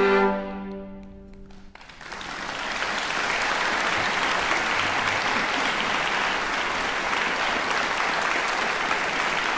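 A violin and viola duo's final held chord breaks off just after the start and rings away in the hall; about two seconds in, an audience breaks into steady applause that fills the rest.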